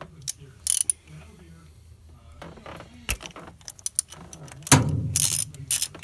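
Ratchet wrench clicking and metal tools clinking as spark plugs are unscrewed from the engine, in scattered short clicks with one louder clatter about five seconds in.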